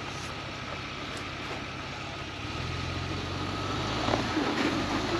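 A vehicle's engine running while the vehicle tries to pull free of deep snow, getting louder about halfway through.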